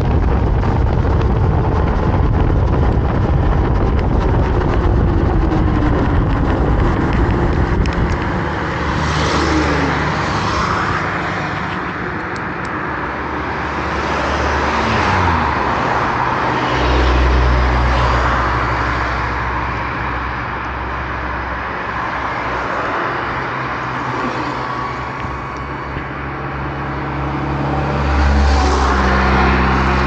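Wind buffeting the microphone of a moving electric scooter for the first several seconds. After that comes road traffic, with a few cars passing by, each one swelling and fading.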